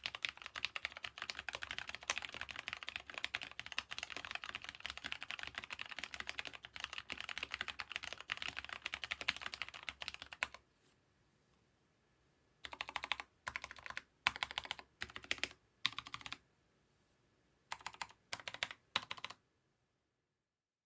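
Corsair K70 RGB MK.2 mechanical keyboard with lubed Cherry MX Brown switches being typed on: fast continuous typing for about ten seconds, then a pause followed by about eight short bursts of rapid key presses, stopping shortly before the end.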